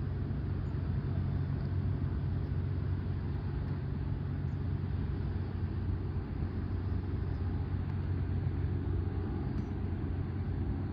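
Cessna A185F Skywagon floatplane flying overhead: a steady low drone from its six-cylinder engine and propeller.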